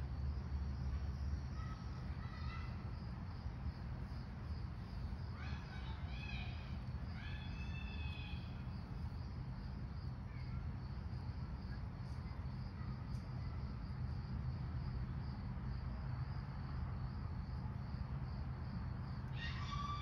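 Outdoor ambience: insects chirping in a steady, evenly repeating pulse over a low rumble, with a few short rising calls about five to eight seconds in.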